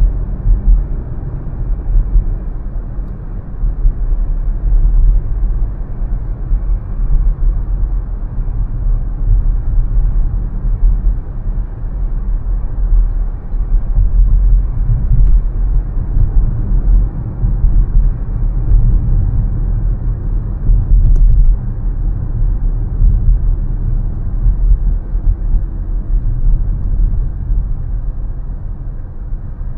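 Car driving: a steady low rumble of road and engine noise.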